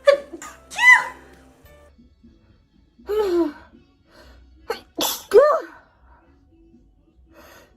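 A woman sneezing three or four times in a row. Each sneeze is a sudden burst with a pitched cry that rises and then falls.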